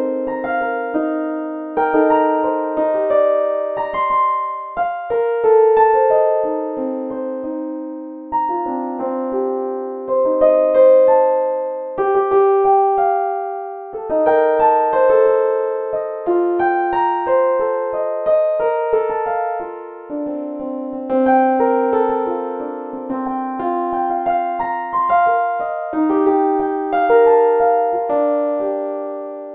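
Background music played on a piano: a gentle melody of struck notes over broken chords, with no drums. It dies away at the very end.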